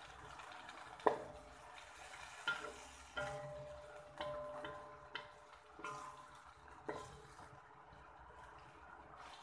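Wooden spatula knocking and scraping against a wok while stir-frying midin fern shoots. There are about seven irregular knocks, the first and loudest about a second in, and several leave a brief ringing tone from the pan.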